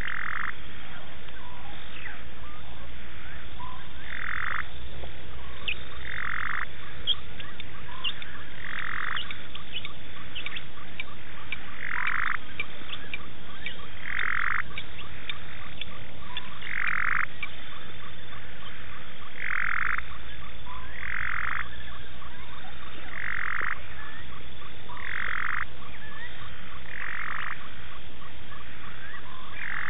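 Frogs calling: one call of about half a second repeats every two seconds or so, with many faint short ticks from other callers in between.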